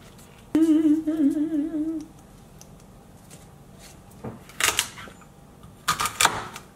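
A woman hums one wavering note for about a second and a half. Then a kitchen knife chops through celery onto a cutting board in two short runs of cuts, near the middle and near the end.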